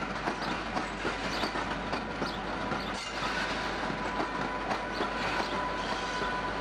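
Electric-locomotive-hauled train of British Rail coaches rolling slowly past over pointwork, the wheels clicking irregularly over rail joints. A thin, steady wheel squeal joins about three seconds in.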